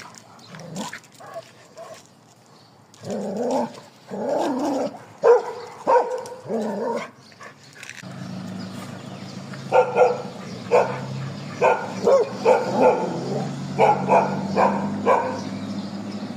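Street dogs barking: a few longer barks first, then a run of short barks about twice a second in the second half, over a steady low hum that starts about halfway.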